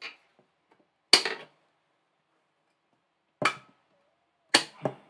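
Sharp clicks and clacks from the hinged arms of a SilentiumPC Atlas NT-L10 folding laptop table being adjusted: one about a second in, another about three and a half seconds in, and two close together near the end.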